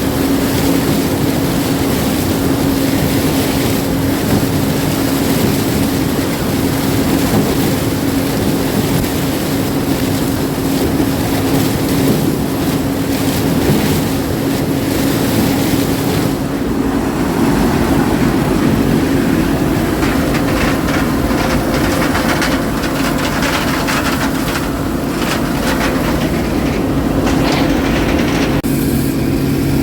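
Heavy farm machinery running steadily: a constant engine hum under a loud rush of mechanical noise, with the lower notes changing near the end.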